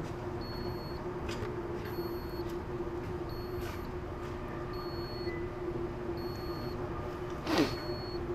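An insulation resistance tester (megger) giving a short high beep about every second and a quarter while it applies test voltage to a wire, over a steady hum. A brief swish near the end.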